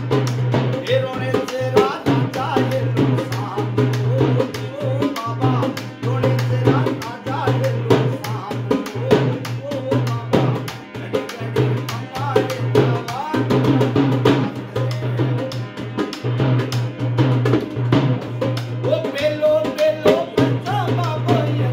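Folk music played live on a hand-played double-headed barrel drum (dhol) and a hand-pumped harmonium, with a man singing. The drum beats out a fast, busy rhythm over the harmonium's steady reedy drone and melody.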